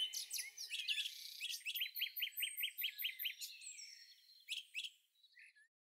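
Small birds chirping and twittering, with a fast run of repeated chirps in the middle, thinning out and stopping just before the end.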